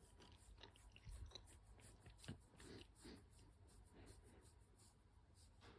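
Near silence: quiet room tone with a few faint ticks and soft rustles.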